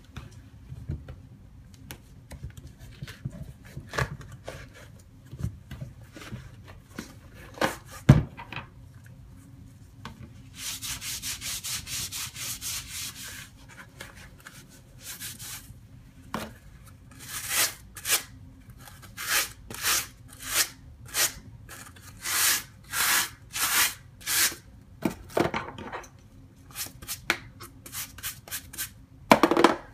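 Hands scrubbing a sneaker: faint handling clicks and one sharp knock, then a stretch of steady rubbing, then a run of short scrubbing strokes at about one and a half a second.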